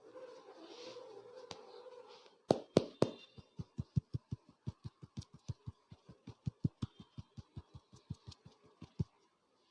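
Rhythmic hand percussion of an Indian head massage: three loud slaps, then a rapid, even run of hollow pats at about five a second, ending about 9 seconds in with one louder strike. A faint steady hum comes before the slaps.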